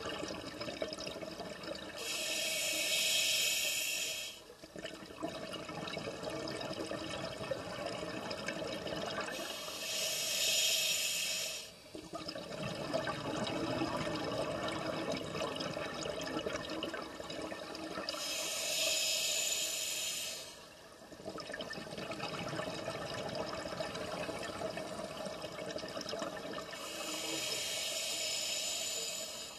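A scuba diver breathing through a regulator underwater: four long hissing breaths about eight seconds apart, with a steady wash of water noise between them.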